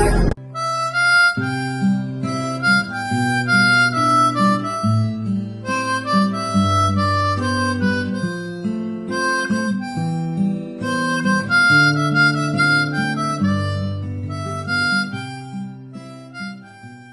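Background music: a melody of clean held notes stepping over a bass line, fading out near the end.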